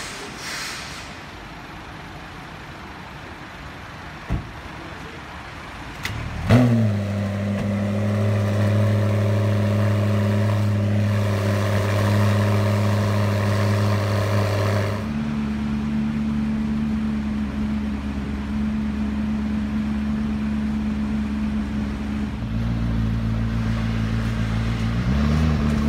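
McLaren P1's twin-turbo V8 starting up about six seconds in with a short rise in revs, then running at a steady high idle that drops to a lower idle about fifteen seconds in. Near the end it is revved once briefly. Before the start there is quiet street noise and a single knock.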